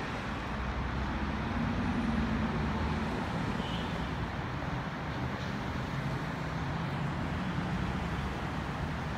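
Steady road traffic noise, a continuous low rumble of vehicle engines and tyres, swelling slightly about two seconds in.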